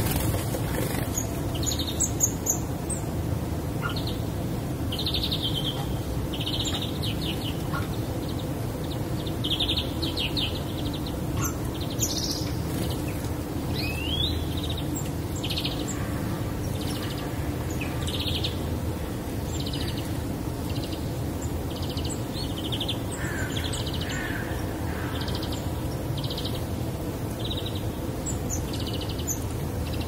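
Small songbirds calling: short, high chirps and little trills repeated about once a second, with one rising whistle about fourteen seconds in. A steady low rumble runs underneath.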